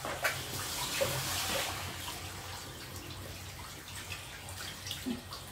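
Water running from a handheld shower and splashing over a wet long-haired cat being bathed, heaviest about a second in.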